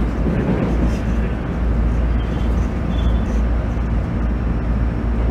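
Running noise of a JR East GV-E400 diesel-electric railcar under way, heard from inside the car: a steady low rumble of the engine and wheels on the rail.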